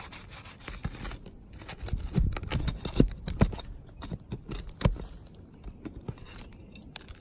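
Steel pry bar working roofing nails loose from under asphalt shingles: a series of scrapes, clinks and sharp knocks, the loudest knocks coming between about two and five seconds in.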